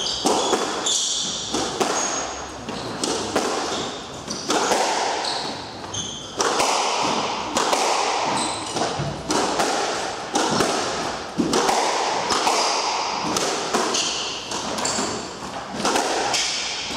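Squash rally: the ball smacks off racket strings and the court walls again and again, each hit echoing in the court, with short high squeaks of shoes on the wooden floor in between.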